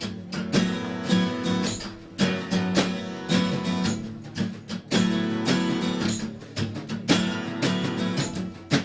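Acoustic guitar strummed in a steady song rhythm, its chords ringing between the strokes.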